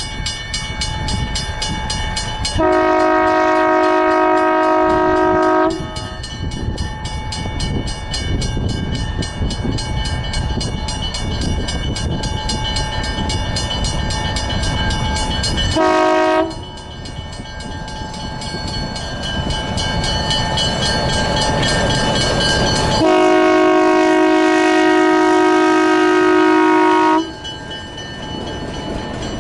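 Diesel locomotive hauling a passenger train closes in and passes, its engine rumbling steadily while its air horn sounds three times: a long blast of about three seconds, a short toot, then a long blast of about four seconds. Near the end the coaches roll by with wheels clicking over the rail joints.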